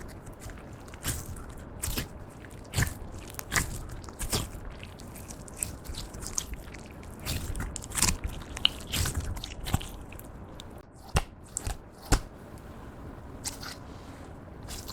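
Clear slime being worked by hand, with irregular sticky pops and crackling clicks as it is pressed and stretched, a few of them louder snaps.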